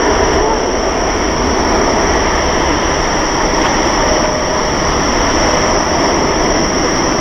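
Boeing 787-9 Dreamliner's twin turbofan engines at high power on its takeoff roll, a steady, unbroken jet roar.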